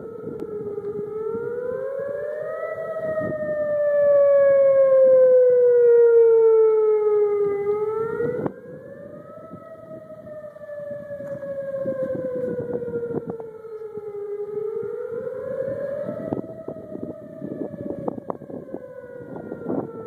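Outdoor tornado warning siren wailing: its pitch rises quickly and then slides slowly down over about six seconds, over and over. It swells loudest a few seconds in, then drops suddenly in level about halfway through.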